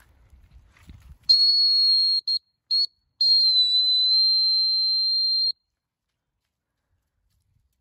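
Dog whistle blown at a steady high pitch: a blast of about a second, two short pips, then a longer blast of about two seconds that cuts off sharply.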